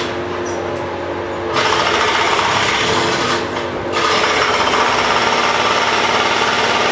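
Jackhammer hammering in a fast, steady rattle, easing off for the first second and a half and again briefly about three and a half seconds in.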